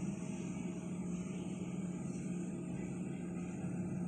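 Steady low mechanical hum with a faint high hiss, unchanging throughout.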